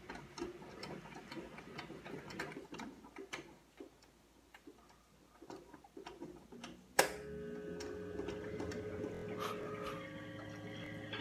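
Faint scattered ticks and clicks. About seven seconds in, a sharp click as the 1959 Westinghouse H545T5A tube clock radio is switched on, followed by a steady hum of several held tones while its tubes warm up.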